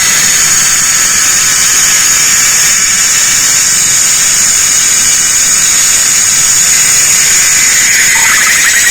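Cicadas calling in a loud, steady, high-pitched buzz. About eight seconds in, a second, lower, pulsing cicada call joins it.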